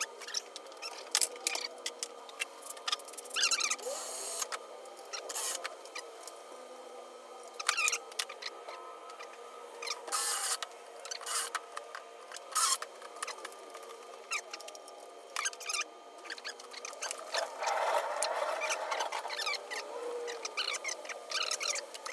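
Handling noises from small workshop parts: scattered clicks and taps with a few short squeaks, and a brief scraping rustle about three-quarters of the way through.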